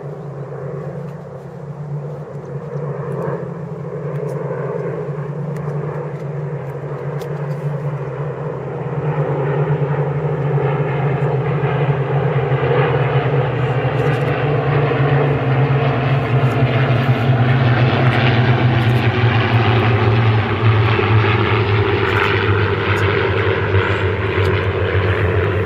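A formation of Spitfires flying over, their V12 piston engines droning together. The sound grows louder about a third of the way in as the aircraft come overhead, and the pitch sinks slightly later on as they pass.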